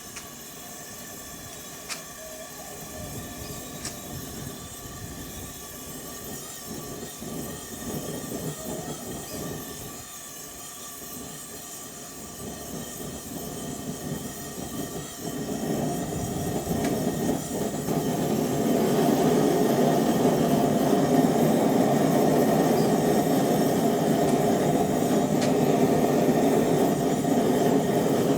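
Single-burner gas forge being fired: a quieter, fluttering burn for about the first half, then the burner roar builds over a few seconds and holds steady. This is a test firing of the forge's freshly applied Satanite lining.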